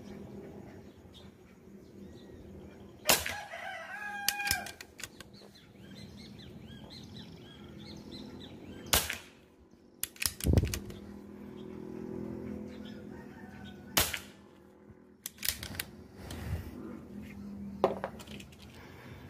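PCP air rifle firing a series of sharp shots several seconds apart, the loudest about 3 s in, with smaller clicks and knocks between them. Bird calls can be heard between the shots.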